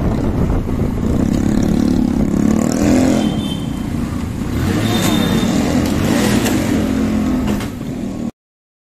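Motorcycle engine running as it is ridden through traffic, rising and falling with the throttle. There are two brief high-pitched tones about three and five seconds in. The sound cuts off abruptly near the end.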